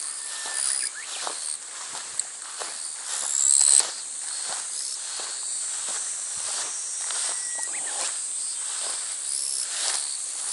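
Footsteps walking at a steady pace, about two a second, with insects buzzing in a steady high band behind them. The buzz swells briefly, loudest about three and a half seconds in.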